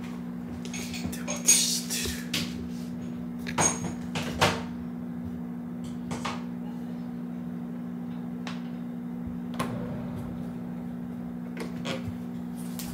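A steady low hum with scattered household knocks and clatters, like cupboard doors being opened and closed and things being handled. Near the end a door opens.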